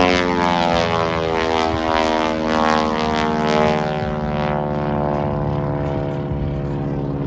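Propeller aerobatic airplane flying past, its engine note dropping in pitch over the first few seconds as it goes by, then holding steady as it draws away.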